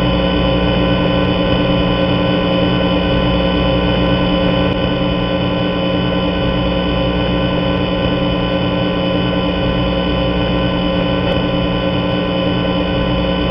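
A loud, steady electronic drone of many held tones, unchanging throughout.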